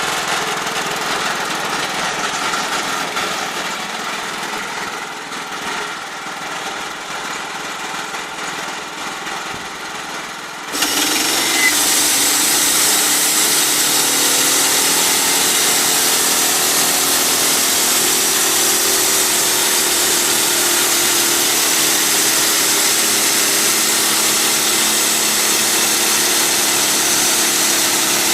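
Wood-Mizer band sawmill running steadily. About eleven seconds in it gets suddenly louder, with a steady hiss added as the band blade cuts into the log, and it keeps on sawing at that level.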